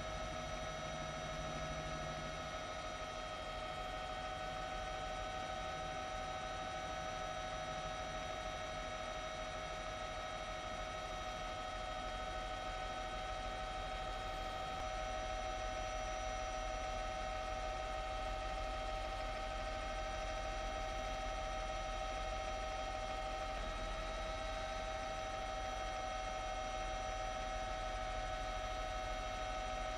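Steady mechanical hum with a high whine over a low rumble, from the aircraft filming overhead; the whine drops slightly in pitch about three-quarters of the way through.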